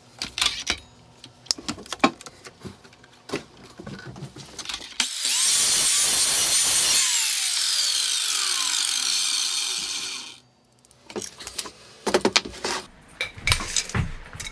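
Clicks and small knocks of handling, then a power saw starts about five seconds in and cuts through 40x20 aluminium extrusion for about two seconds. Its motor then winds down with a falling whine for about three seconds and stops, and the clicks and knocks start again.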